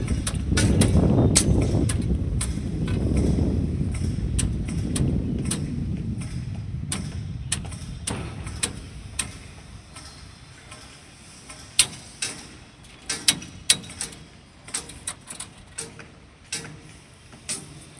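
Low machine rumble that fades away over the first half, with scattered sharp knocks and clinks at a construction site that continue on their own after it fades.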